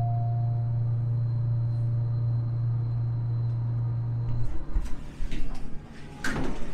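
Steady low mechanical hum that cuts off abruptly about four and a half seconds in, followed by scattered knocks and rattles. The tail of a ringing chime tone fades out at the very start.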